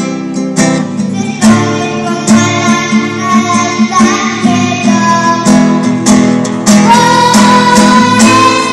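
Young girl singing a song to strummed acoustic guitar accompaniment, the sung melody coming through more clearly in the second half.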